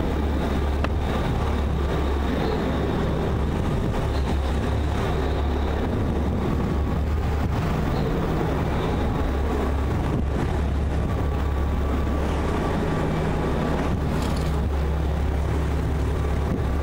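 RNLI lifeboat's diesel engines running with a steady low drone, under a wash of sea and wind noise.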